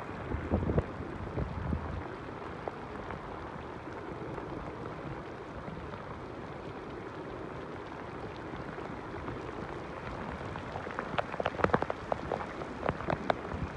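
Heavy downpour falling steadily on standing water and pavement, an even hiss of rain. A few sharper knocks and taps stand out over it about half a second in, and more crowd together from about eleven seconds in.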